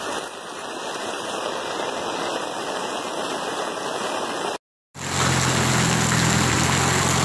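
Heavy rain pouring down, a dense steady hiss. After a brief dropout about four and a half seconds in, a vehicle engine hums steadily over the noise of rain and water.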